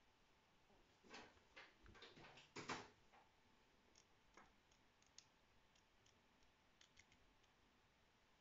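Curta mechanical calculator handled and its setting sliders pushed notch by notch. There is a cluster of louder clicks and rattle between about one and three seconds in, then light scattered ticks.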